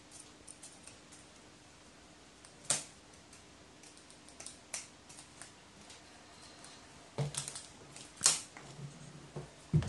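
Scattered sharp clicks and taps of a crow's beak pecking at an apple and its claws on a sheet-metal tabletop, the loudest about three seconds and eight seconds in, with duller thumps among them from about seven seconds on.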